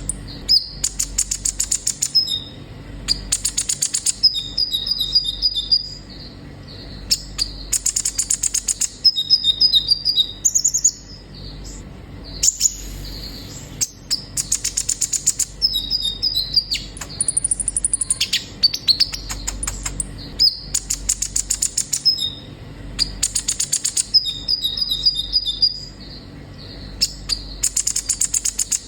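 Kolibri ninja sunbird singing: repeated phrases of fast, high chattering trills alternating with short, thin whistled notes, the song coming in bursts every couple of seconds.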